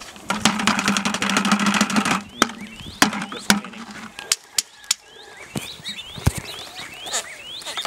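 Soil and gravel rattling in a round metal sieve shaken over a plastic bucket, a fast dense rattle for about two seconds, then scattered knocks and taps as the sieve is handled against the bucket.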